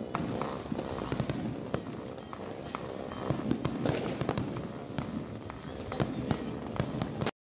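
Fireworks and firecrackers going off, a dense irregular string of bangs and crackles that cuts off suddenly near the end.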